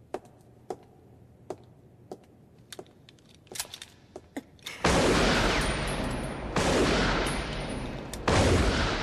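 Slow footsteps on a hard floor, then a handgun fired three times about a second and a half apart. Each shot is loud and trails off in a long echo.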